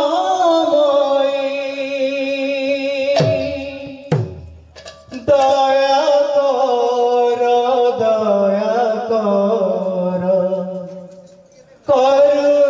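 A male singer of a devotional kirtan song sings long, wavering held notes into a microphone. A few seconds in, the singing breaks off and there are two sharp knocks before it resumes; near the end it fades briefly and comes back.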